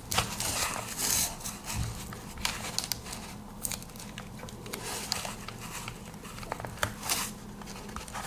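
Adhesive tape being pulled and pressed onto a small cardboard box, with crinkling and rustling of the packaging in irregular bursts, busiest in the first second or so.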